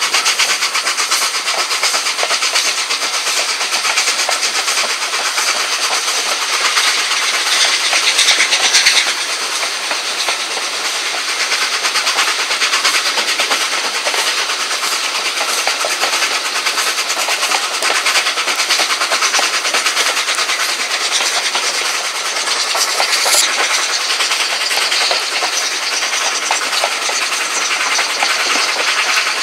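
LNER A3 Pacific 60103 Flying Scotsman hauling its train, heard from an open carriage window: a steady rush of running noise with the carriage wheels clicking over the rail joints and the hiss of steam. It swells briefly about eight seconds in.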